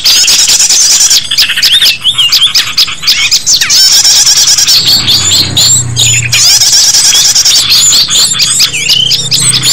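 Bird-lure recording of many small birds calling at once: a loud, dense mass of quick overlapping chirps, squeaks and squawks. A low hum joins about halfway through.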